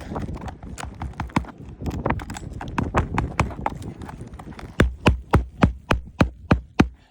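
Scattered clicks and scraping as a roof shingle is worked loose by hand, then a quick even run of about nine hammer strikes, about four a second, driving roofing nails back into the shingle.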